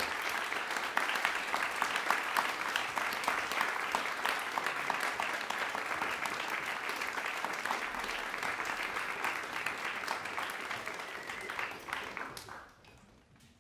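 Audience applauding steadily, dense clapping that dies away near the end.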